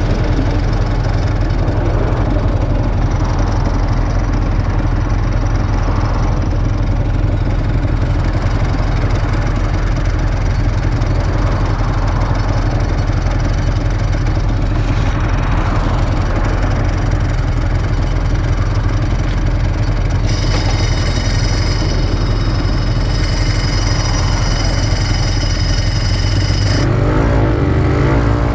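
Honda NSR250SE's two-stroke V-twin engine idling steadily, with a few quick changes in revs near the end.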